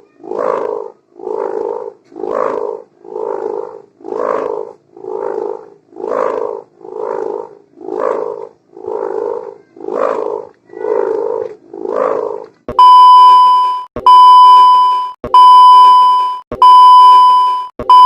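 A kite hummer (sendaren) buzzing in regular pulses about once a second, a snoring-like sound. About thirteen seconds in, it gives way to four loud electronic beeps at one steady pitch, each over a second long.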